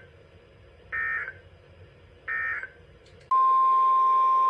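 Two short buzzing bursts of EAS SAME digital data, the end-of-message code of a weather radio alert, about a second and a half apart. About three seconds in a loud, steady single-pitch alert tone near 1 kHz starts, the NOAA Weather Radio 1050 Hz warning alarm tone.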